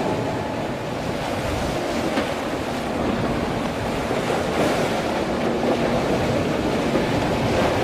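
Wind buffeting the microphone over choppy water, with the wash of waves. A small boat's outboard motor running at speed is faintly heard through it.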